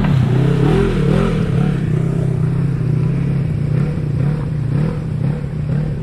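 A vehicle engine revving up and down in the first second, then running steadily at low revs.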